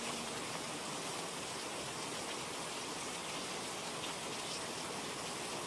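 Steady rain-sound ambience: an even hiss of falling rain, with no music left.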